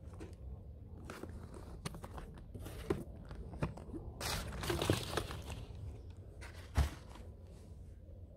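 Cardboard box being handled and set down on grass: scattered light knocks and rustles, a longer scraping rustle about four to five seconds in, and a dull knock near seven seconds.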